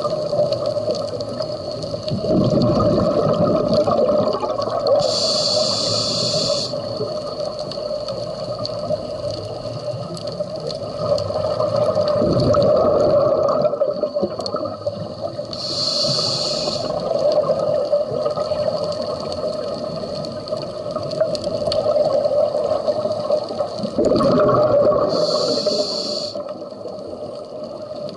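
Scuba diver breathing through a regulator underwater: three hissing inhalations through the demand valve, roughly ten seconds apart, with a bubbling gush of exhaled air between them.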